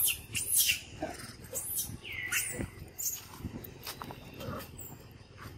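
Macaque monkeys giving short, high-pitched squealing cries, several falling calls loudest in the first second, then fainter calls with scattered rustles and taps.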